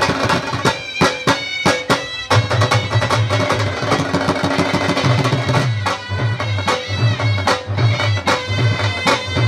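Live dhol drumming with wind instruments playing a melody over it: the dhol's deep bass strokes come in rhythmic bursts beneath sharp drum hits and a sustained, nasal pipe line.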